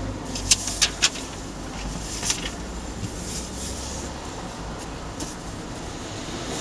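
Hummer H2 idling: a steady low engine rumble that fades after about four and a half seconds, with a few sharp clicks in the first two seconds or so.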